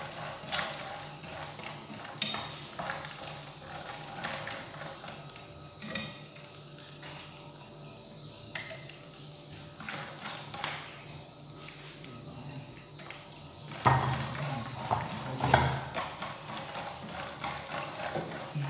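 Macaroni frying in a pan, a steady high sizzle, with chopsticks scraping and tapping against the pan as it is stirred. A couple of louder knocks come near the end.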